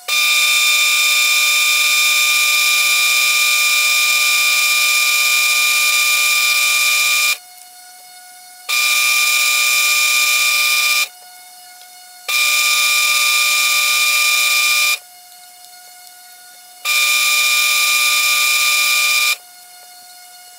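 Sandpaper pressed against an acrylic pen blank spinning on a Delta benchtop lathe gives a loud, steady hissing whine. It comes in four spells, the first about seven seconds long and the rest a few seconds each, with the lathe's fainter steady whine carrying on in the short gaps between them.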